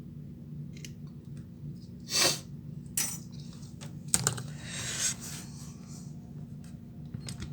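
Small metal tools clicking, tapping and scraping at a phone repair bench, a few separate strokes with one sharp click about four seconds in, over a steady low hum.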